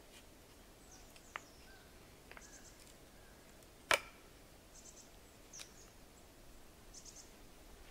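A few light wooden clicks and one sharper knock about four seconds in, as a hazel spindle is twisted into the cord of a bow drill's bow.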